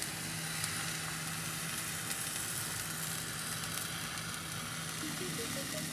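Kefir pancake batter sizzling steadily in a frying pan greased with vegetable oil over a medium gas flame, as the freshly poured blin cooks.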